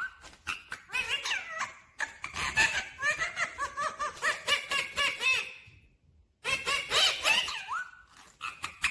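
Rose-ringed parakeet (Indian ringneck) chattering in a run of quick calls that swoop up and down in pitch, with a short pause about six seconds in.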